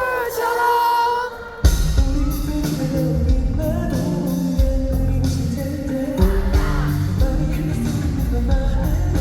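Pop-rock band music. A sung phrase ends about a second in, then after a short drop the full band comes back in with drums and bass and plays on steadily without vocals.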